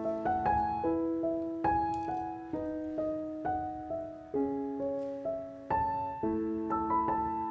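Background piano music: a gentle melody of single notes and chords, each note struck and fading away.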